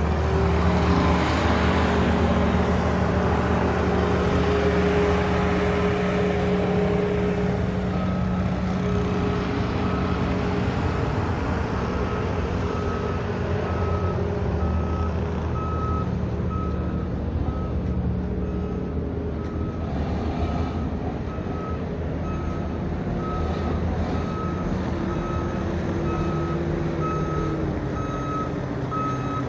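Heavy vehicle's engine running steadily, with a backup alarm beeping at an even pace, a little over a second between beeps, from about eight seconds in.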